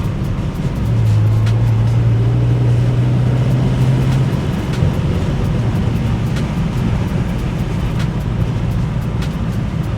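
BMW 335i's turbocharged inline-six engine and road noise while driving, with a steady low drone from about a second in that eases off after about four seconds, and scattered light ticks.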